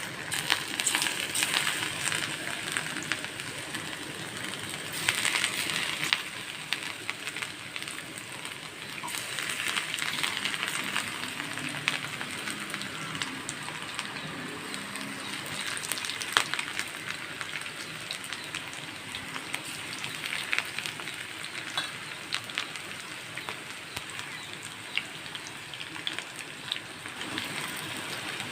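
Bitter gourd pieces coated in gram-flour and rice-flour batter deep-frying in hot groundnut oil: a dense crackling sizzle that swells several times as more pieces go in, with a few sharp clicks.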